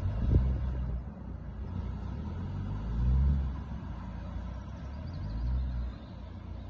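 Off-road 4x4 engine revving under load in three low rumbling surges while the vehicle works through a difficult section of the trail.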